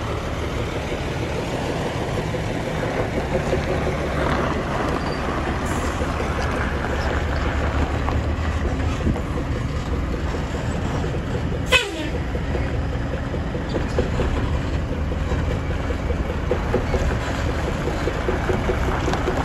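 Heavy diesel truck engine idling with a steady low rumble. A single brief sharp knock about twelve seconds in.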